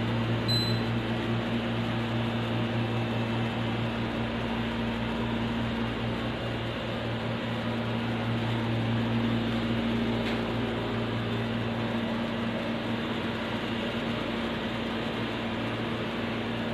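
Steady low electrical hum over an even hiss: a motor-driven appliance running. About half a second in, the tower fan's control panel gives one short high beep.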